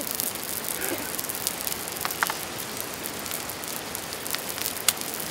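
Salmon frying in a pan on a small gas camp stove, sizzling with scattered pops and crackles of fat, over the steady rush of a mountain stream.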